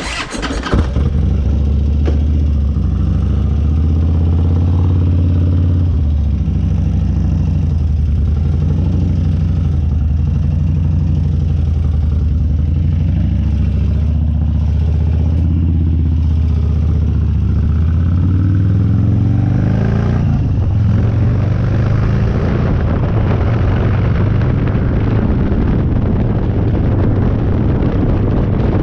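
Harley-Davidson Dyna's V-twin engine starting and idling. About twenty seconds in it revs up in pitch and keeps running rougher with wind noise as the bike gets under way.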